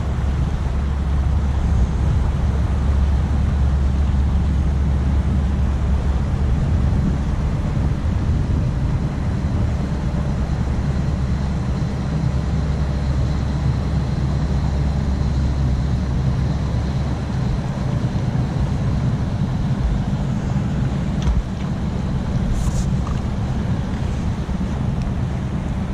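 Steady low drone of a passing inland cargo barge's diesel engine, mixed with wind buffeting the microphone. A couple of short clicks near the end.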